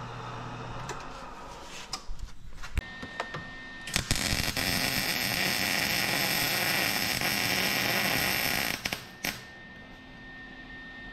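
A MIG welder's arc runs steadily for about four and a half seconds, starting about four seconds in, as a steel bracket is welded. Before it, a drilling machine's motor hum stops about a second in, followed by a few clicks and knocks.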